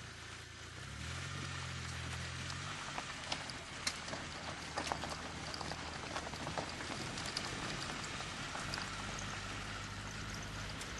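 Vehicle driving over a rough gravel dirt track: a steady hiss of tyres on loose stones, with scattered sharp ticks of gravel striking the vehicle and a low engine hum that comes and goes.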